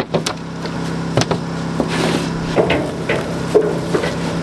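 A motor running with a steady low hum, overlaid by irregular knocks and clunks of equipment being handled.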